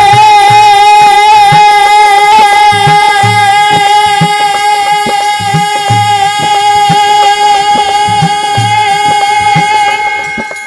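Punjabi devotional song in which the male lead singer holds one long high note for about ten seconds over harmonium and a regular dholak beat. The note fades out near the end.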